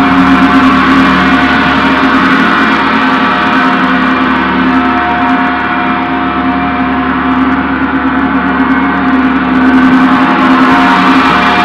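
Large Paiste gong played continuously with soft round-headed mallets, a sustained dense wash of many ringing tones with no separate strokes standing out. It eases slightly midway and swells again near the end.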